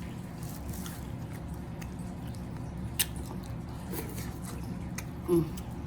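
Close-up chewing and biting of seafood, wet mouth sounds with a few sharp clicks, and a brief hum near the end.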